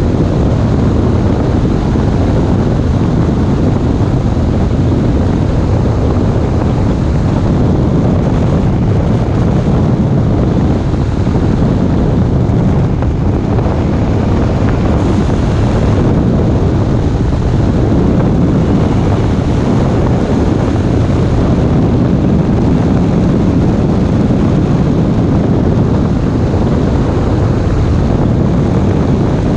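Loud, steady rush of airflow buffeting the microphone of a camera mounted on a hang glider in flight.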